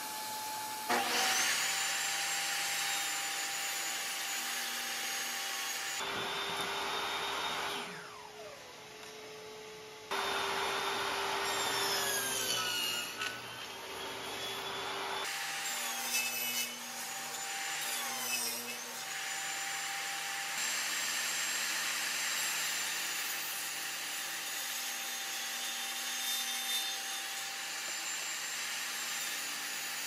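Portable jobsite table saw running and crosscutting pine boards, with a shop vacuum pulling dust through an overhead blade hood. About six seconds in, the saw's whine falls away as it spins down. The saw starts again a few seconds later.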